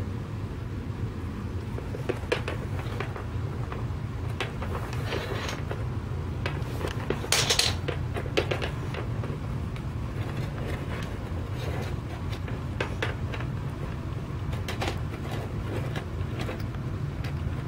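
Small plastic toy figurines handled and set down on a wooden surface: scattered light clicks and taps over a steady low hum, with one louder, noisier handling sound about seven seconds in.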